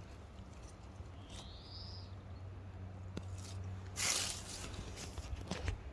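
Quiet outdoor ambience among dry fallen leaves: a brief rustle of dry leaves about four seconds in, with a few small clicks and a faint steady low hum. A short high whistle rises in pitch about two seconds in.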